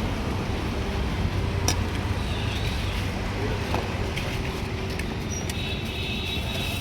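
Steady low rumble of road traffic with faint background voices, a sharp click about two seconds in and a brief high ringing tone near the end.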